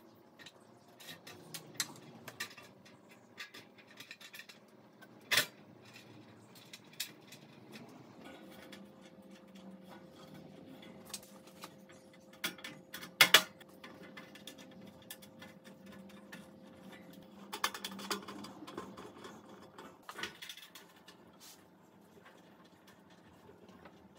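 Small metal clicks and taps as ceiling fan mounting bolts are put in and tightened by hand against the fixture's metal mounting pan. A sharper clink comes about five seconds in and a loud double clank near the middle.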